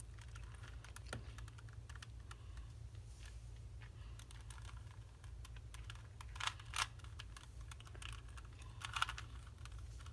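Plastic Rubik's cube being turned by hand, its layers clicking and clacking in quick irregular runs, with louder clusters of turns near the middle and near the end.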